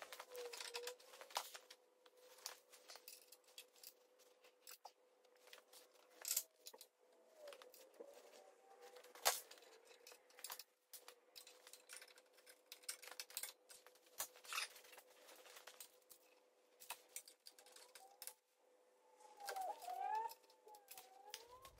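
Faint scattered clicks and taps of metal parts and a locking clamp being handled as a steel suspension bracket is positioned and clamped onto a car chassis, over a steady faint hum. A few faint wavering squeaks come in about seven seconds in and again near the end.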